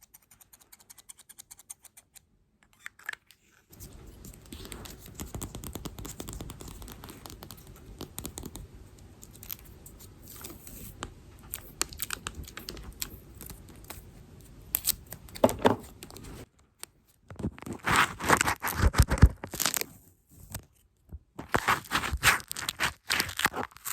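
Close-miked ASMR trigger sounds: faint tapping at first, then a steady scratchy rubbing from about four seconds in, and loud crinkly, crackling bursts in the last third.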